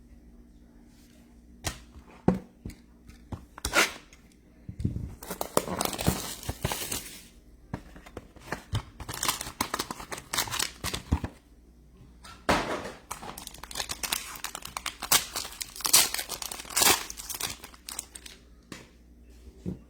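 Packaging of a box of trading cards being handled, torn and crinkled open, in three stretches of rustling and crackling after a few sharp clicks and taps.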